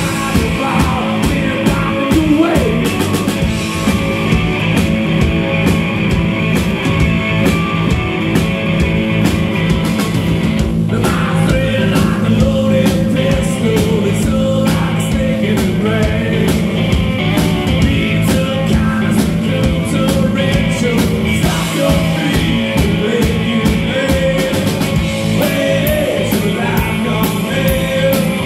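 Live rock band playing: a male singer over electric guitar, electric bass and a drum kit with steady cymbal work.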